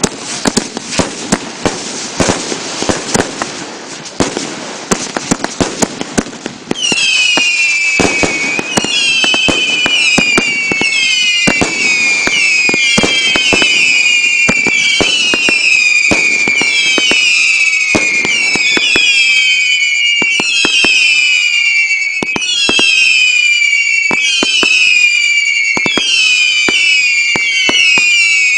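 Fireworks going off: a dense crackling with many pops, then about seven seconds in a continuous volley of whistling fireworks, one shrill whistle after another, each falling in pitch, mixed with sharp bangs.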